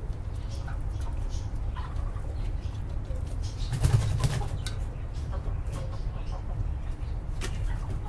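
Chickens in a poultry pen: a burst of wing flapping about four seconds in, with scattered short clucks, over a steady low rumble.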